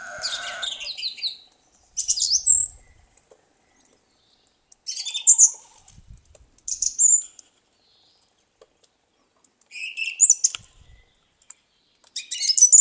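A thrush singing: about six short, high phrases of whistles and twitters, each separated by a pause of a second or two.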